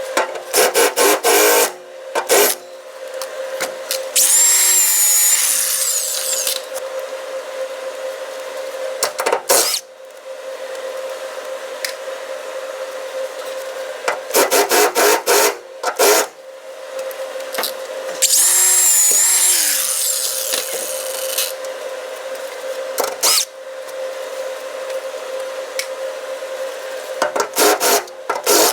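Welding arc crackling in short bursts of a second or two, about six times, as a torque box is welded into a car body. Twice a small power tool runs for a couple of seconds, its whine falling away as it spins down, over a steady hum.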